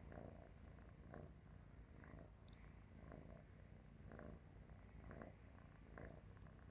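Domestic cat purring faintly while asleep: a low, continuous rumble that swells about once a second with each breath.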